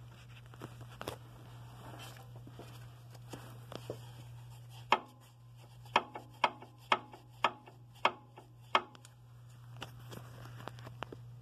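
A run of about eight sharp knocks, roughly two a second, over a steady low hum, with lighter clicks and rattles before and after.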